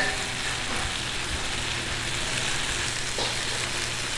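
Shuijian bao (pan-fried buns) sizzling in oil in a large flat pan: a steady frying hiss, with a brief ringing clink right at the start.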